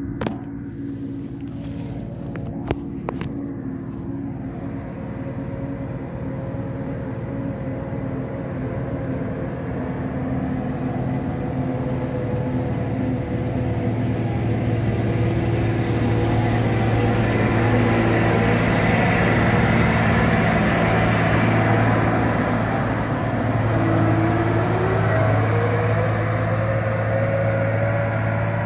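Deutz-Fahr combine harvester's diesel engine running as the machine drives along the road, a steady hum that grows louder over the first two-thirds. About three-quarters through, its note dips briefly and then climbs again.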